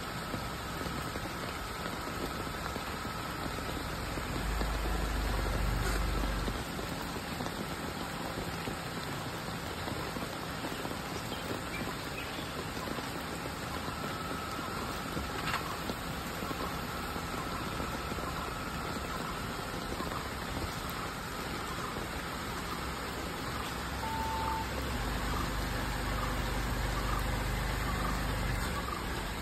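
Tata Punch compact SUV's engine running at low speed while the car is manoeuvred slowly, heard from outside. The engine swells briefly about five seconds in and again for a few seconds near the end as the car pulls forward, over a steady hiss.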